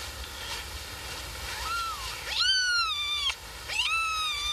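Newborn kittens mewing: thin, high-pitched distress cries. A short one comes about two seconds in, then two longer ones of about a second each, each rising and then sliding down in pitch. These are the cries of a kitten struggling to right itself after rolling onto its side.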